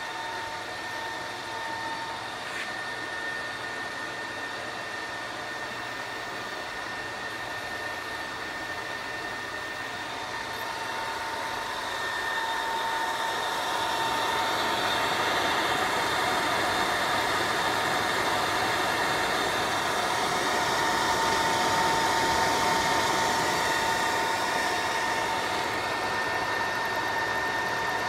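Cooling fan in a CNC stepper-driver control enclosure running, a steady whir with a constant whine in it; it grows louder about twelve seconds in.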